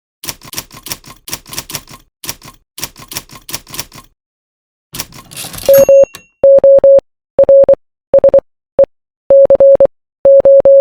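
Morse code beeping: a steady mid-pitched tone keyed on and off in short and long pulses, the dots and dashes, starting about six seconds in. Before it, about four seconds of rapid clicking in uneven bursts, then a short hiss that rises into the first beep.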